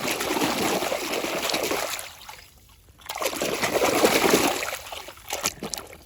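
Water splashing and trickling as a muddy toy car is washed by hand. It comes in two spells with a short pause about two seconds in, then fades to light drips and splashes near the end.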